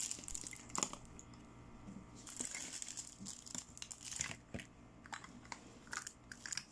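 Plastic toy makeup pieces being handled and packed away: a few sharp plastic clicks and taps, with a stretch of crinkling plastic from about two seconds in until past four.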